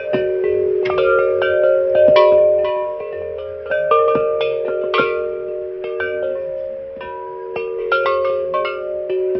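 Church bells struck repeatedly at an uneven pace, several pitches ringing on and overlapping one another.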